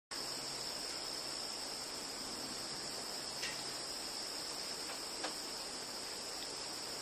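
Steady high-pitched insect chorus, like crickets trilling, with two brief faint chirps about three and a half and five seconds in.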